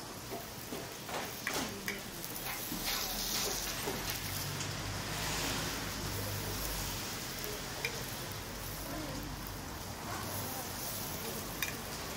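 Hotteok frying in oil on a griddle, a steady sizzle, with a few light clicks.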